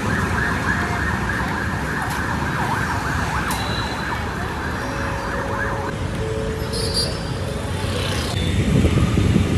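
Emergency vehicle siren wailing up and down for about six seconds, then fading out, over steady road traffic noise.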